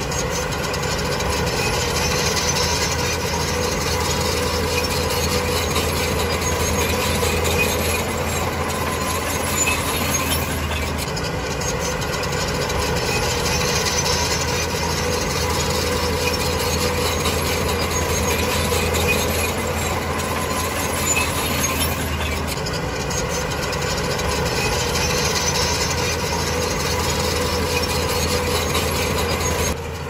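Heavy diesel engine of a Shantui DH17C2 bulldozer running steadily under work, with a constant drone and a shift in its low note about a third and again two-thirds of the way through.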